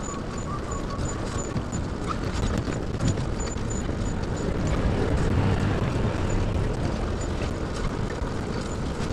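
Wheeled pet trailer rolling along a street: steady road rumble and wind noise with many small rattles and clicks, and a faint rapid high ticking.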